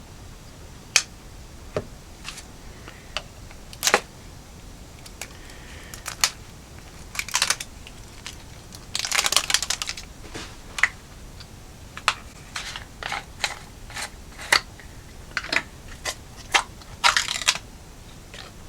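Scattered small clicks and taps with a few short crinkling bursts, the loudest about nine seconds in, as kitchen items and food packaging are handled.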